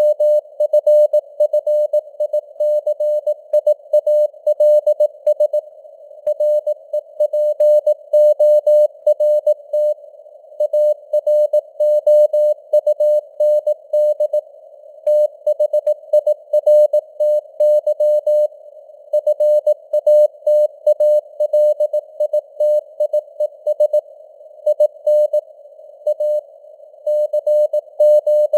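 Morse code (CW) sent at 18 words per minute: a single steady mid-pitched tone keyed on and off in dots and dashes, with longer gaps between words. It sits over a narrow band of simulated radio-receiver hiss.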